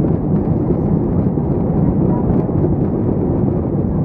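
Cabin noise inside an Airbus A319 rolling on the ground after landing: a steady low rumble of the jet engines and the wheels on the pavement.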